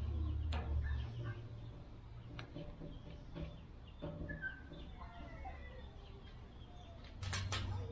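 Scattered bird calls in the background, clucking like hens, with a few sharp clicks and taps as hands work an adhesive gasket into the metal edge of a smoker lid. The clicks come once about half a second in and as a quick cluster near the end.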